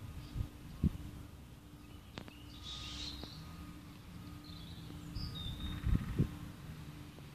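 Outdoor ambience with small birds chirping now and then over a faint steady low hum. A few soft low thumps sound close to the microphone, near the start and again about six seconds in.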